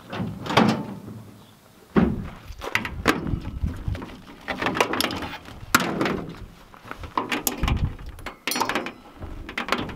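Irregular thumps, knocks and rustling as a coiled suction hose and an electric utility pump are set down and handled in a pickup's bed liner.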